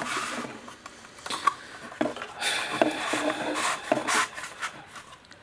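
Handling noise: rubbing and rustling with light clicks and knocks as parts and packaging are moved about, busiest about halfway through.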